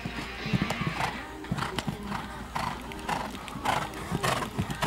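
Horse cantering on a sand arena, its hoofbeats coming in a steady rhythm, with a short noisy sound about every half second.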